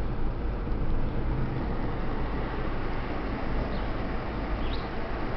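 Steady road and engine noise of a moving car heard from inside the cabin, a low rumble with a hiss over it. A few faint, short high chirps come near the end.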